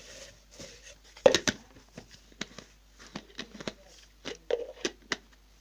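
Small plastic packet crinkling as it is handled and opened, a run of short sharp crackles, the loudest about a second in.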